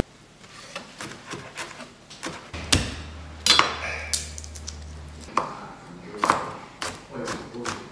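Chef's knife chopping coriander and garlic cloves on a plastic cutting board: irregular sharp knocks of the blade on the board, with a short lull in the middle.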